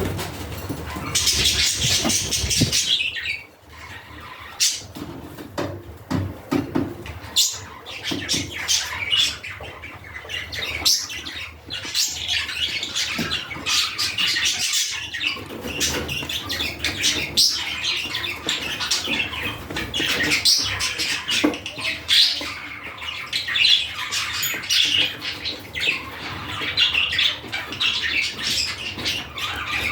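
Budgerigars chattering and squawking, a dense run of short high calls.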